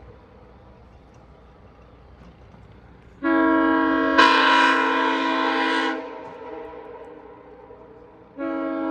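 Nathan Airchime K5CA-LS five-chime air horn sounding a steady chord in two blasts. The first starts about three seconds in, grows sharply louder and brighter about a second later, lasts under three seconds and trails off in an echo. The second blast starts near the end.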